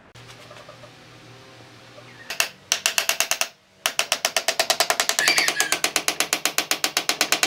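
Hammer driving nails into a timber frame: rapid, even strikes about ten a second, starting a couple of seconds in, with a short break a little after that.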